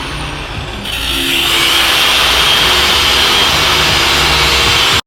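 Angle grinder with a cut-off wheel cutting through steel, a loud steady grinding hiss with a bright high edge that cuts off suddenly near the end.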